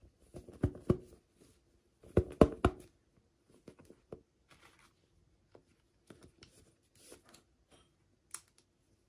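Hands handling small toy packaging: sharp taps and clicks in two clusters, about a second in and again around two and a half seconds in, then light scattered ticks and rustling.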